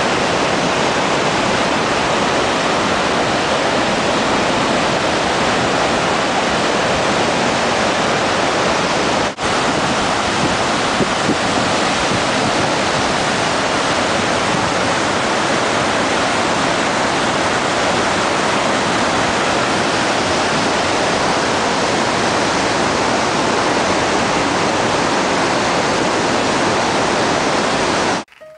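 Waterfall pouring through a rock gorge into its plunge pool: a loud, steady rush of water, with a momentary break about nine seconds in, cutting off suddenly near the end.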